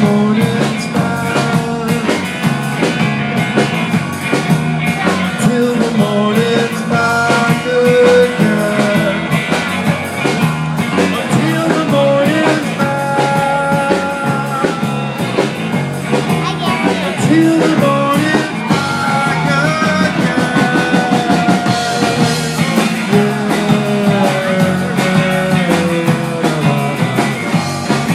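Live rock band playing: electric guitar over a drum kit with a steady beat, the guitar's lines bending in pitch.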